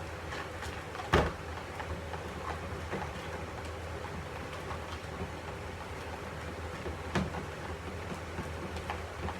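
Pencils knocking and scraping against bowls as slime is stirred, with scattered small clicks, a sharp knock about a second in and another near seven seconds, over a steady low hum.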